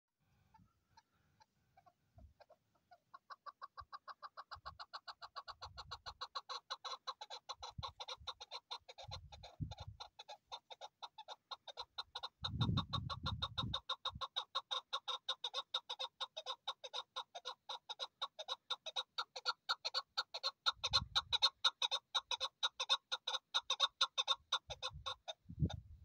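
Chukar partridge calling: a long, rapid run of repeated chuk-chuk notes, several a second, that grows steadily louder. A few low rumbles sound underneath, the longest about halfway through.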